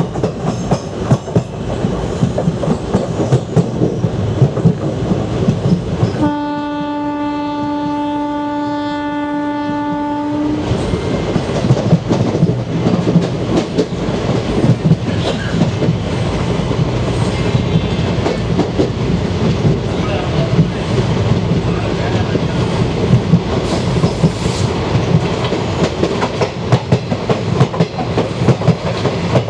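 WAP4 electric locomotive's horn sounding one long, steady blast of about four seconds, starting about six seconds in, over the continuous clickety-clack of a vintage ICF coach's wheels running over the rail joints, heard from inside the coach.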